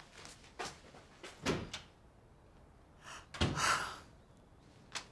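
A door shutting with a thud about three and a half seconds in, among a few quieter knocks and soft footfalls.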